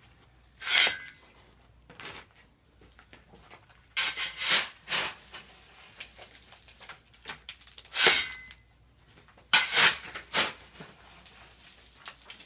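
Rustling and rubbing noises from a handheld camera being moved about, coming in about five irregular bursts. Two of the bursts carry a brief squeak.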